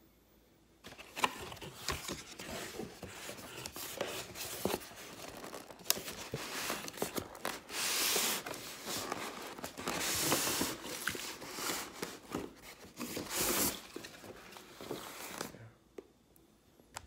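Cardboard box and styrofoam packaging being opened and handled: a steady run of rustles, scrapes and small knocks as flaps are pulled open and the inner packing is slid out, with several longer, louder sliding scrapes about eight, ten and thirteen seconds in.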